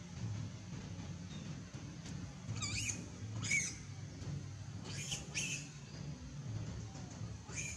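Young long-tailed macaques squealing: five short high-pitched squeaks, some sweeping upward in pitch, over a steady low rumble.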